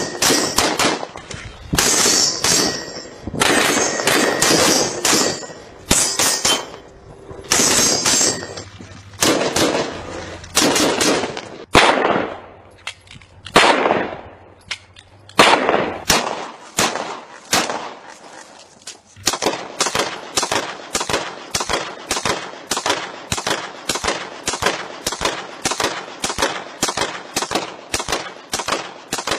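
Semi-automatic pistol shots fired in quick strings separated by short pauses. In the last ten seconds they come as a steady, even run of about two to three shots a second.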